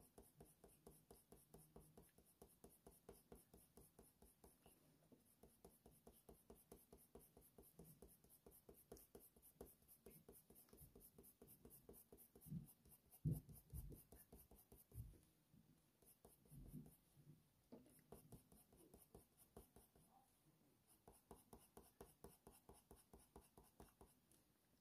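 Faint scratching of a Faber-Castell Polychromos colored pencil on hot-press watercolor paper, laid down in many short, quick strokes to build up fur texture. A few soft low bumps come about halfway through.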